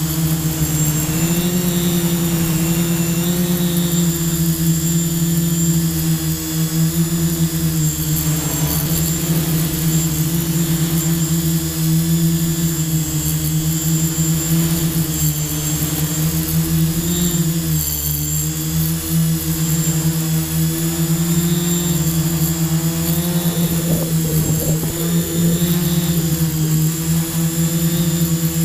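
Quadcopter drone's electric motors and propellers whining steadily, the pitch drifting up and down together as the throttle changes, with a brief rougher patch near the end.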